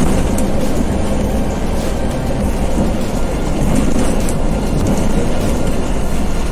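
Scania coach on the move: steady engine and road noise.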